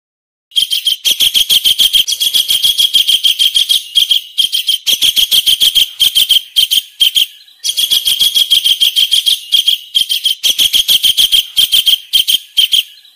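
Kingfisher call: a long, rapid series of high-pitched repeated notes in two bouts, with a short break about halfway.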